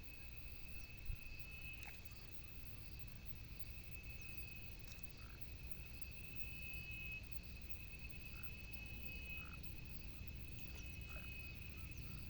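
Frogs calling by the water: a steady high-pitched trill with a few short lower croaks scattered through it, over a low rumble. A single knock sounds about a second in.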